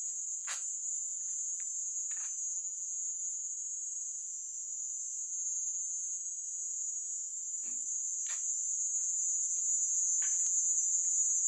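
Crickets chirring at night: a steady, continuous high-pitched trill, with a few faint short clicks scattered through it.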